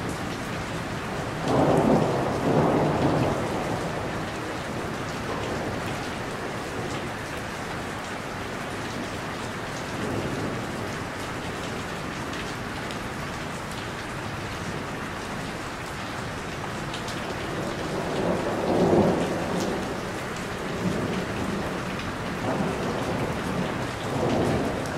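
Steady rain, with a roll of thunder rising out of it three times: about two seconds in, again past the middle, and just before the end.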